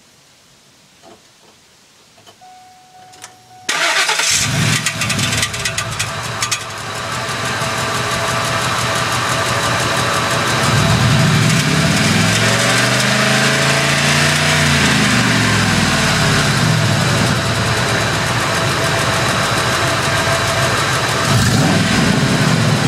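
A 2001 Ford F-150's 5.4-litre V8 is started about four seconds in after a few faint clicks. It runs with a rapid clicking at first, then is revved up and back down twice, a long rev and then a short one near the end. The clicking comes at every start and on acceleration, and began about two months ago.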